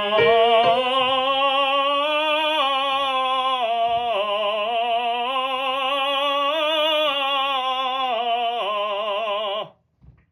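A classical singer sings a single long legato phrase with vibrato, moving by steps between sustained notes, for about nine and a half seconds before stopping abruptly.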